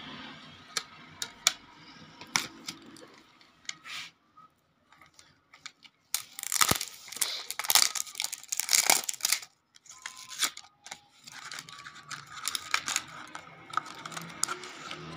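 Plastic wrapping on makeup packaging crinkling and tearing as it is pulled off, loudest and crackliest from about six to nine and a half seconds in. Before that, a few sharp clicks of boxes and a palette being handled.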